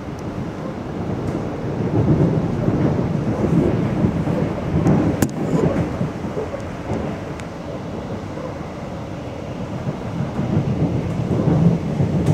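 Passenger train rumbling along the rails, heard from inside the carriage; the rumble swells and eases, with a single sharp click about five seconds in.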